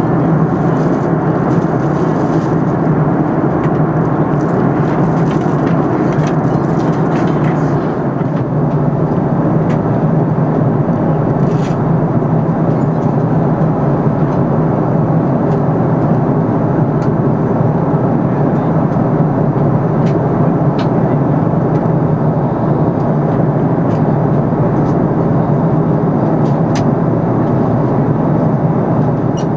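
Steady cabin noise inside an Airbus A340-300 in descent: the even rush of airflow over the fuselage and the drone of its four CFM56 turbofan engines, with a low hum underneath and a few faint clicks.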